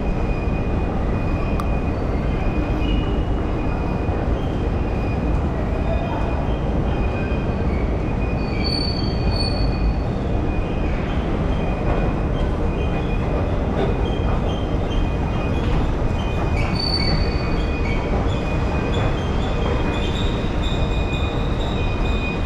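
Underground metro train running in the station: a steady low rumble, with brief high wheel squeals about nine seconds in and again about seventeen seconds in.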